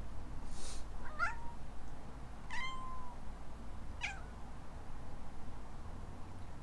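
Kitten giving three short meows about a second and a half apart: the first warbles upward, the second is held on one pitch, the last is brief and falling.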